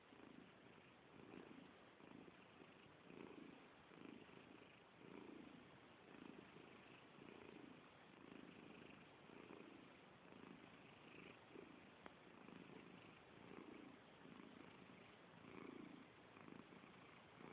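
Faint, soft snoring from a sleeping pet, in a steady rhythm of about one breath a second.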